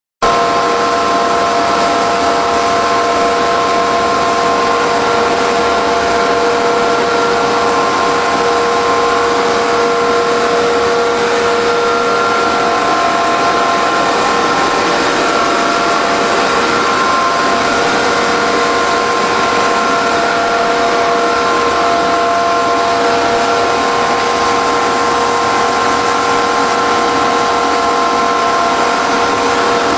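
PVC sheet extrusion line running: a steady industrial din of electric motors and gear drives, with a whine at several steady pitches over the noise.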